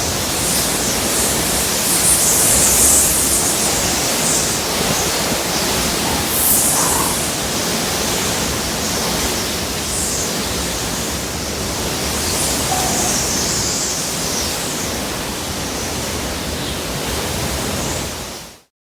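Hurricane wind and rain: a steady rushing noise that rises and falls in gusts. It cuts off suddenly near the end.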